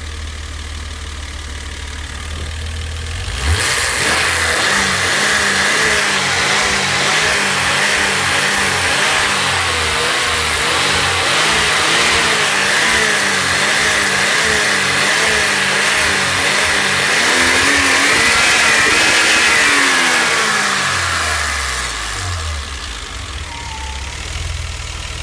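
BMW M20B20 2.0-litre straight-six, fully warm, with a freshly repaired cylinder head and new camshaft. It idles, is revved up suddenly about three and a half seconds in and held at a higher speed that wavers slightly, rises a little more near the end, then drops back to idle.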